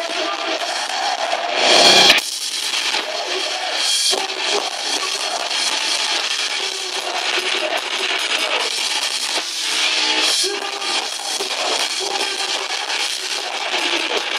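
Live metalcore band playing: distorted electric guitars and drum kit, thin with little bass. A loud hit stands out about two seconds in.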